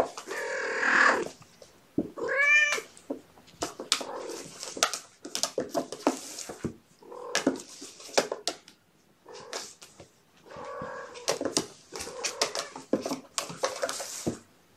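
Cats meowing several times, short arching calls and one longer call at the start, over a run of small clicks and scratches from kittens scrambling about on a plastic slide.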